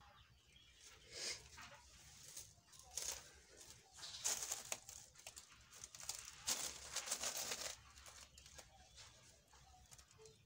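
Black plastic net rustling and crinkling as it is spread out and smoothed by hand over a gravel bed, in several bursts, the longest about four seconds in and again between six and a half and eight seconds in.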